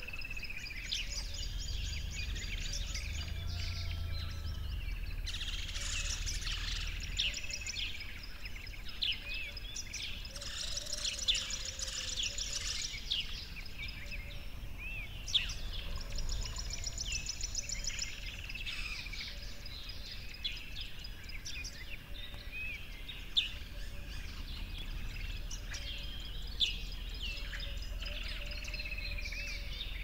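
Chorus of several birds chirping, whistling and trilling, with many overlapping short calls and a low steady rumble underneath.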